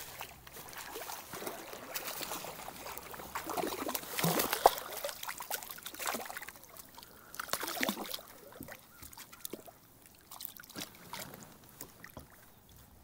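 A hooked smallmouth bass thrashing and splashing at the water's surface beside a kayak, in irregular bursts. The loudest splash comes about four and a half seconds in, and the splashing dies down over the last few seconds.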